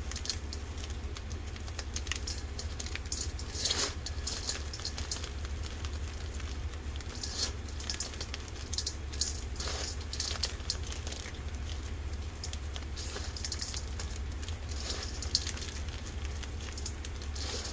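Hands squeezing and crumbling pieces of boiled, dyed and dried gym chalk in a metal bowl: a steady soft crunching and crackling. A few sharper cracks come about four, eight, ten and fifteen seconds in.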